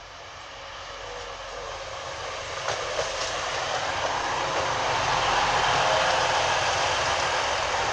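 A TransPennine Express Class 185 diesel multiple unit arriving at the platform, growing steadily louder as it runs in alongside. There are a couple of sharp clicks about three seconds in.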